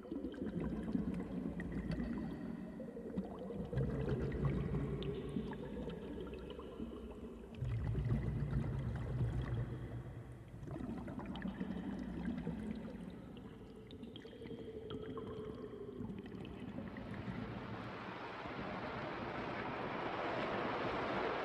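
Muffled underwater pool sound: low churning and bubbling water. Late on, a rising hiss of splashing and bubbles joins it.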